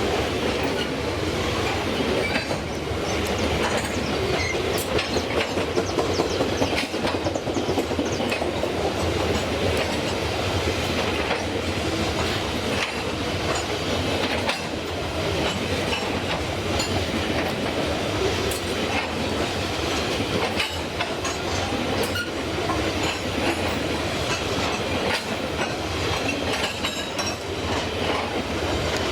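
Freight train wagons rolling past at an even level, the wheels on the rails giving a continuous clatter with many sharp clicks.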